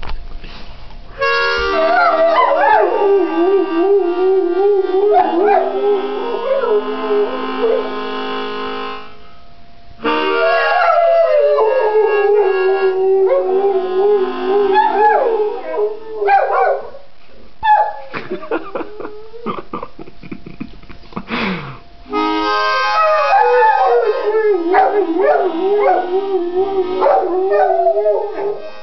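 Two dogs howling along with a harmonica, their wavering howls weaving over its chords in three long phrases. In the pause between the second and third phrase the dogs yip with scattered sliding cries.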